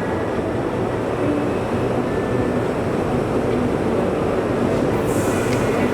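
Steady, dense din of an exhibition hall full of running metal-working machinery, with a short hiss about five seconds in.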